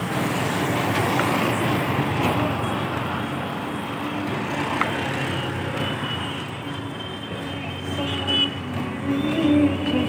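Steady engine and road noise from a moving vehicle on a city street. A few sustained tones come in near the end.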